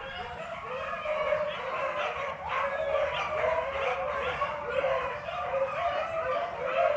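A pack of rabbit beagles baying in chorus, many overlapping voices sounding without a break as they run a rabbit's trail.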